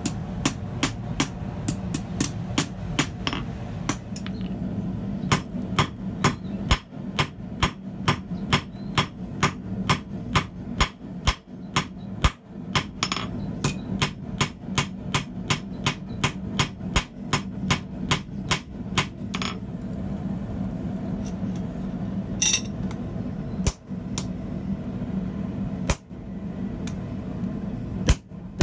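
Hand hammer striking a glowing steel bar on a steel block anvil: sharp, steady blows at about two to three a second, with a steady low hum underneath. After about twenty seconds the blows stop, leaving only a few scattered single strikes.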